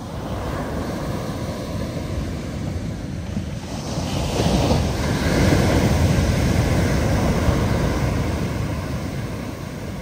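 Big ocean waves breaking, the surf noise swelling into a heavy crash about four seconds in and slowly easing off, with wind buffeting the microphone.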